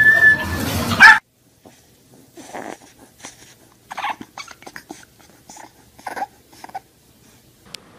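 Loud dog barking over a steady high tone, cut off about a second in. Then a bulldog puppy makes a string of soft, short howls and whimpers with its head raised.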